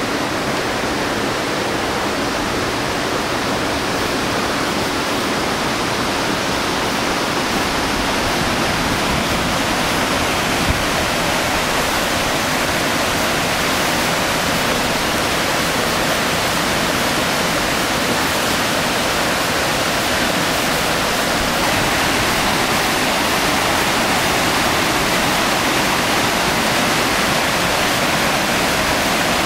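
River rapids: fast white water rushing over rocks, a steady loud rush of water.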